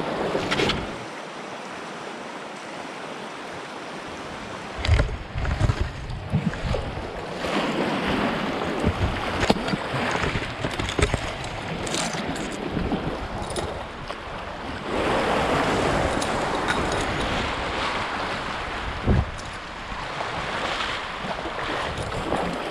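Fast river current rushing around a canoe, with wind on the microphone and a few short knocks.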